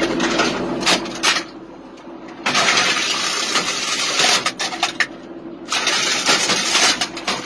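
Machinery running inside a self-propelled howitzer's crew compartment: a steady hum, a few sharp metal clanks in the first second and a half, then two long stretches of loud rushing noise from about two and a half seconds in.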